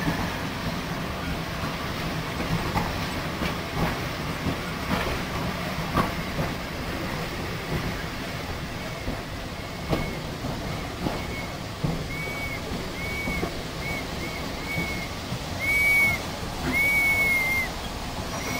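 Railway carriage rolling slowly through station pointwork, its wheels rumbling and clicking irregularly over rail joints and points. From about halfway in comes a run of short high-pitched squeals from the train's running gear, growing louder and longer toward the end.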